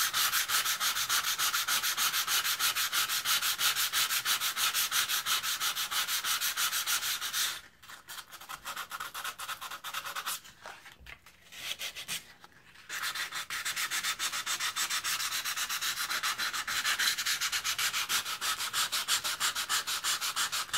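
400-grit sandpaper rubbed by hand in quick back-and-forth strokes along a rusty knife blade, scouring off crusty rust. The rasping stops for about five seconds near the middle, with only a few light rubs, then starts up again.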